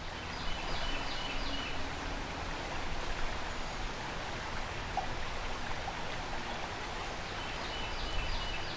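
Steady rushing of a river riffle, the water running fast over rocks, fading in at the start.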